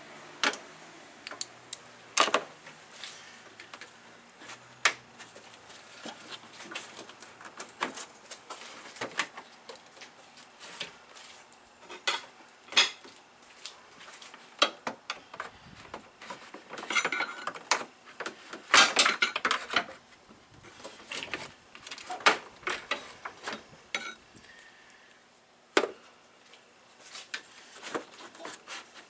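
Hard plastic and metal parts clicking, knocking and rattling at irregular moments, with a busier clatter about two-thirds of the way through, as a radiator cooling-fan shroud is handled and worked into place.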